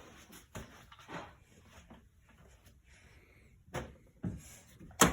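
Plastic toy building pieces being handled and set down: a few scattered knocks and clicks, the sharpest one near the end.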